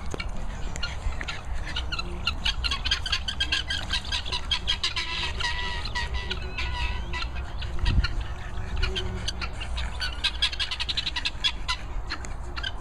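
A flock of helmeted guineafowl calling in fast, harsh, clicking chatter, with wind rumbling on the microphone and a single thump about two-thirds of the way through.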